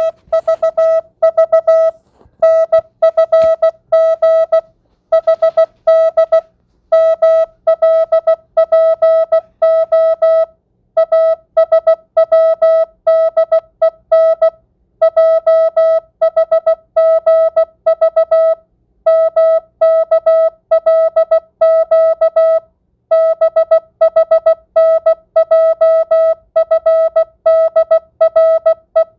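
Morse code (CW) practice tone sent at 16 words per minute with standard (non-Farnsworth) spacing: a single steady beep keyed into rapid dots and dashes, spelling random letters in words of varying length, with short pauses between words.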